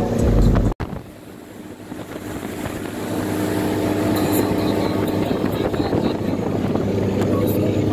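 Motorboat engine running underway, a steady low hum with wind rushing past. The sound breaks off sharply about a second in, then comes back quieter and builds up again.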